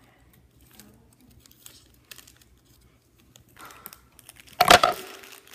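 Plastic toy packaging crinkling and tearing as hands work it open, in faint scattered crackles, with one much louder burst of crinkling about four and a half seconds in.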